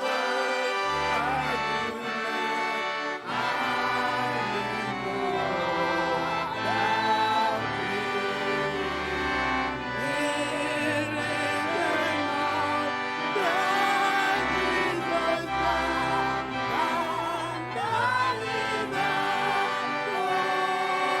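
Church music: a wavering melody line over sustained chords, played continuously.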